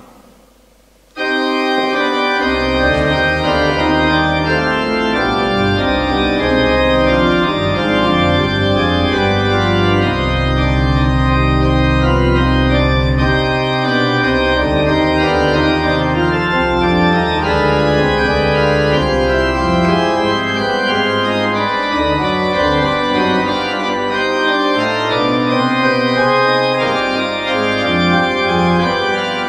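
Church pipe organ playing, starting suddenly about a second in: full sustained chords over deep held pedal notes that change every second or two.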